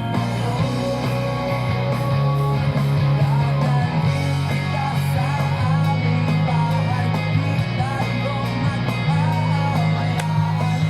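Background music: a song with guitar and a steady bass line, with singing.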